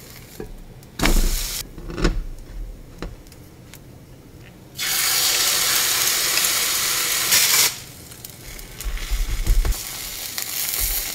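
A metal spatula clicks and scrapes against a nonstick frying pan. About five seconds in, a loud sizzle starts as a shredded-cabbage batter is poured into the hot oiled pan and runs for nearly three seconds. It then drops to a quieter frying sizzle with more spatula scraping.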